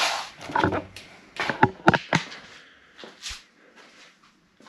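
Camera handling noise as the camera is picked up and carried: irregular rustling with several sharp knocks and clicks, the loudest about two seconds in.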